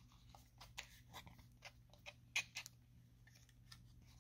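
Faint clicks and scrapes of a thin cardboard deck box being opened by hand, its tuck flap pried up and pulled out, with one sharper tick about two and a half seconds in.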